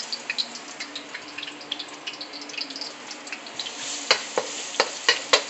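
Chopped garlic sizzling in hot oil in a wok, with many small crackles. From about four seconds in, a spatula knocks against the wok several times as the garlic is stirred.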